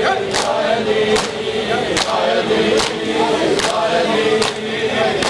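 Crowd of men chanting a noha together while beating their chests in unison during matam. The slaps land in a steady beat, about one every 0.8 seconds.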